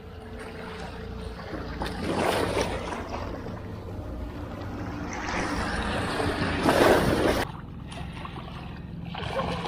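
Wind rumbling on the microphone over washing sea surf, swelling in two louder surges, the second cutting off suddenly about seven seconds in.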